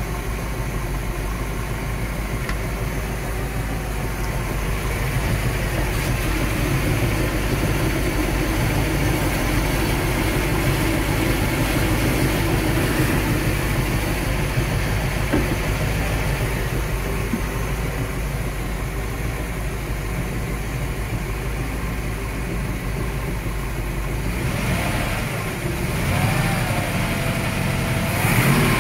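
Chris-Craft 305 V8 marine engine running steadily on a test run. Near the end its note shifts and wavers up and down in pitch.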